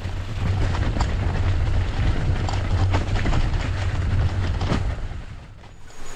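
Loaded mountain bike riding over a rocky, snowy trail, heard through a handlebar-mounted camera: a steady low rumble of vibration with clicks and knocks from the tyres and gear over stones.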